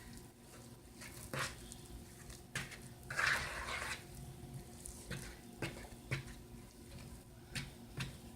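A spoon knocking and scraping against a mixing bowl as cake batter is stirred by hand. There are scattered light knocks and a longer, louder scrape about three seconds in.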